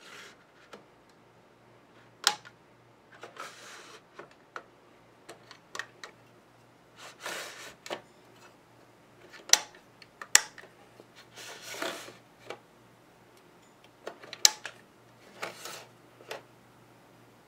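Hands handling hard black plastic parts: irregular sharp clicks alternate with short scraping rubs about half a second long, with a faint steady low hum underneath.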